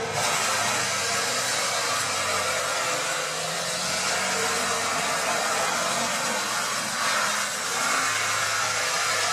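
Tractor-mounted forestry mulcher grinding down a tree stump: a steady, dense rushing noise of the rotor's teeth shredding wood, over the tractor's engine working hard under load.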